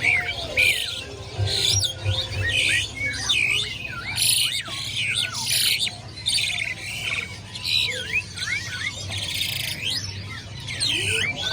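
A group of birds calling all at once, many overlapping whistled glides mixed with harsh squawks, over a steady low hum.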